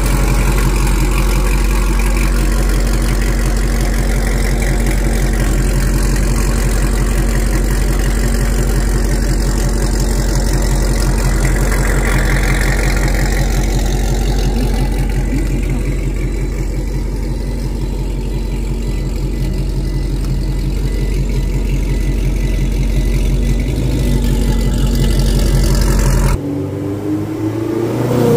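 A C7 Corvette's 6.2-litre V8 running at a steady cruise, a loud, even low drone. About 26 seconds in, the sound cuts to a lighter engine note that rises in pitch as it revs up near the end.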